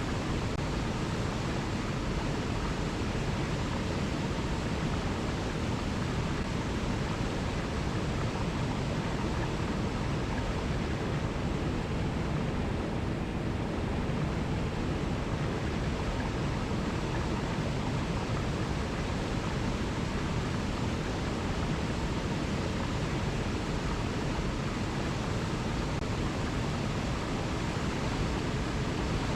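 Alpine mountain river rushing over rocky cascades: a steady, even rush of water.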